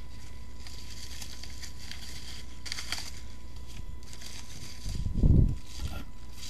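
Packaging being handled: faint crinkling and rustling of paper or plastic, with one louder low thump about five seconds in, over a steady low hum.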